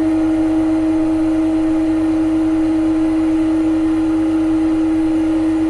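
Steady machine hum from a CNC lathe simulator's spindle sound, a constant tone with overtones, unchanged while the simulated tool makes a facing cut to the centre of the part.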